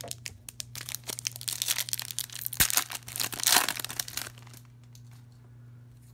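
Foil wrapper of an Upper Deck hockey card pack being torn open and crinkled by hand: a rapid run of crackles and rips that stops about four seconds in. A low steady hum runs underneath.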